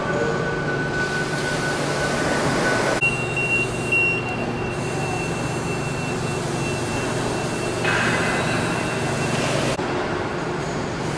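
Steady factory machinery noise: a constant rumbling hum with a thin high whine over it. The mix changes abruptly about three seconds in, again near eight seconds and near ten seconds.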